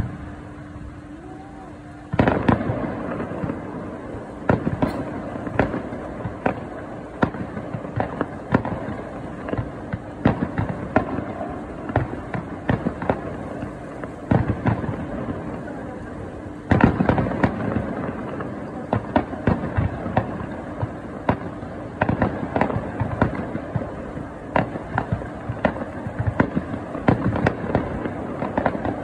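Fireworks display: after a quiet first two seconds, aerial shells start going off in a rapid, irregular run of sharp bangs and crackles. A louder, denser salvo begins about seventeen seconds in.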